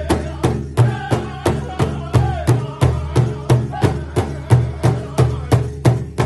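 Powwow drum group playing an intertribal song: several singers strike one large shared powwow drum together in a steady beat, about three strokes a second, while they sing in high voices over it.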